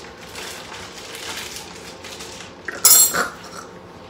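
A metal spoon clinks sharply once against a small glass baby-food jar about three seconds in, a bright ringing tink; before it there is only quiet handling of the spoon and jar.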